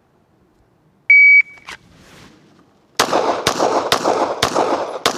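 Shot-timer start beep, a short steady tone. About 1.5 seconds later a Glock 17 9mm pistol fires five quick shots about half a second apart, each followed by echo.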